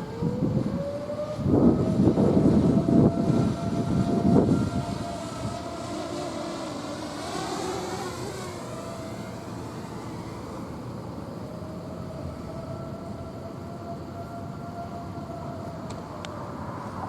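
Outdoor civil defense siren sounding a held wail, its pitch rising at the start, dipping midway and sagging again near the end. Wind buffets the microphone loudly for a few seconds near the start.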